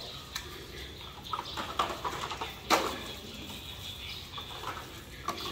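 Hard plastic toy trucks and parts clattering and knocking against each other and a plastic basin, a handful of separate knocks with the loudest about two and a half seconds in.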